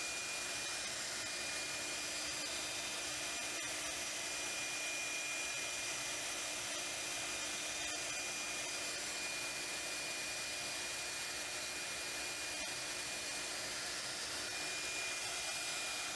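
CNC router spindle running steadily as the machine reruns a finishing pass on pockets in birch plywood: a constant high whine over an even hiss.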